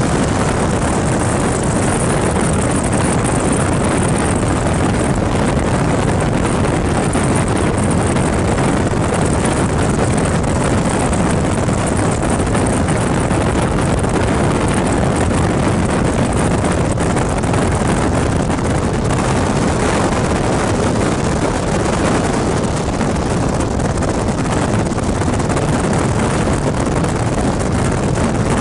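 Steady road and wind noise of a car driving at speed, with wind buffeting the microphone.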